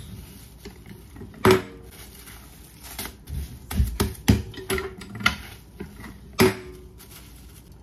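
Cast-iron tortilla press clunking as its heavy lid and lever are swung shut, pressed down and opened again on a ball of masa: several sharp knocks, the loudest with a short metallic ring.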